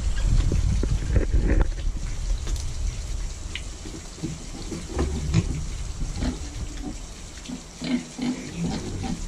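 A group of young black piglets grunting, short scattered grunts and snuffles.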